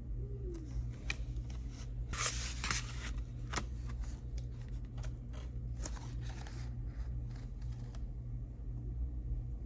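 A thin acrylic (Plexiglas) sheet and cardstock being handled: a run of clicks, scrapes and rustles, loudest about two seconds in, over a low steady hum.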